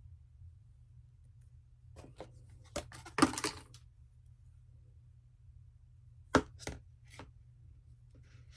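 Packaging being handled during an unboxing: scattered taps, clicks and crinkly rustles, the loudest cluster about three seconds in and two sharp clicks past the six-second mark, over a low steady hum.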